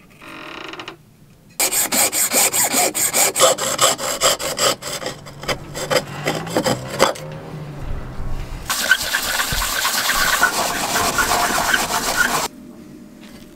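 Hacksaw cutting through a carbon tube: several seconds of quick rasping strokes, a short pause, then a steadier continuous rasp that stops abruptly near the end.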